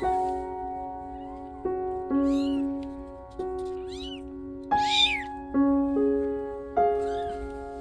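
Kitten mewing over and over in short high-pitched cries, the loudest about five seconds in, over background piano music.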